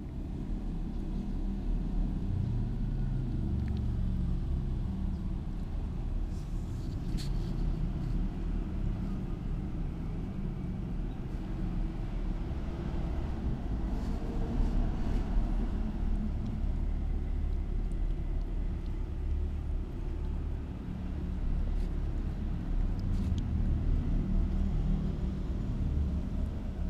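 A low, steady rumble close to the microphone, with a few faint clicks above it.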